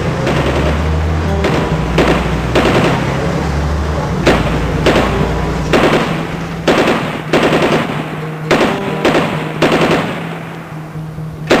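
Loud, rapid bursts of sharp cracks like machine-gun fire, coming in irregular clusters over a steady low drone. It starts abruptly and sounds like an added soundtrack.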